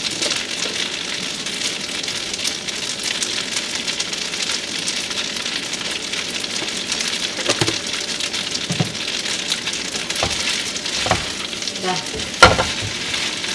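Spaghetti sizzling in oil in a nonstick pan, a steady hiss. Metal tongs toss it, knocking against the pan several times in the last few seconds, with one sharp clack near the end.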